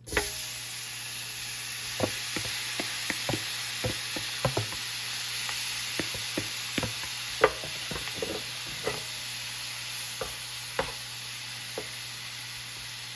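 Marinated goat pieces searing in hot oil and bloomed curry powder in an electric skillet: a steady sizzle that starts suddenly as the meat goes in, with scattered clacks as the pieces are added and stirred.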